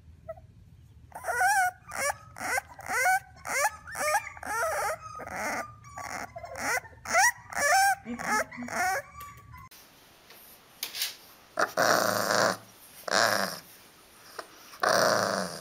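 Bulldog puppies barking: first a run of short, high yips that bend in pitch, about two a second for some eight seconds. Then, after a break, three louder, gruffer barks.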